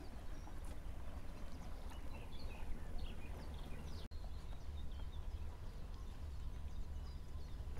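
Wind on the microphone, a steady low rumble, with small birds chirping now and then.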